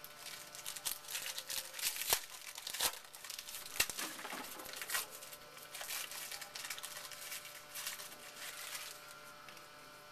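Crinkling and rustling of a foil baseball-card pack wrapper in the hands as cards are handled, with a few sharp clicks about two to four seconds in.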